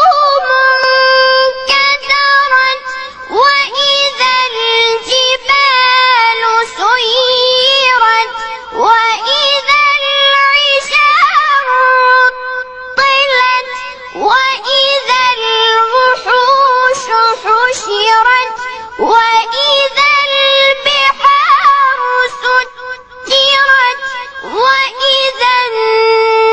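A child's high voice reciting the Quran in a melodic, drawn-out tajweed style: long held notes with ornamented turns, and a short breath pause about halfway.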